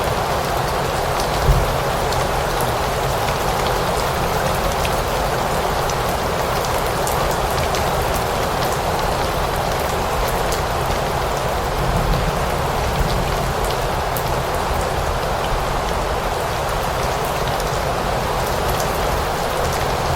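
Steady rain falling, an even dense hiss with individual drops ticking through it, and a brief low thump about one and a half seconds in.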